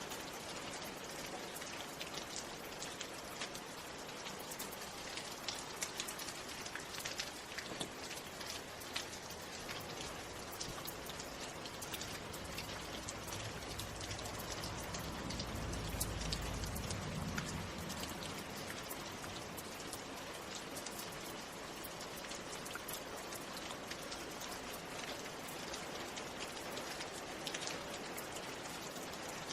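Steady rain falling, with many separate drop hits ticking on a surface. A low rumble swells and fades about halfway through.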